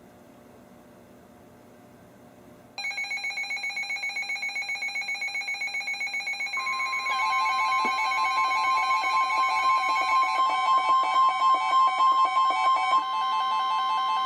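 Several NOAA weather radios sounding their alert alarms together for a special marine warning. After a faint hiss, about three seconds in, layered pulsing beeps start at once. A few seconds later the broadcast's own steady warning alarm tone comes in under them, and more radios' beeps join.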